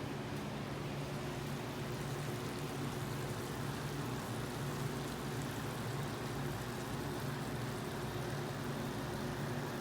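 Steady sizzling of food cooking in a cast iron wok, with a steady low hum underneath.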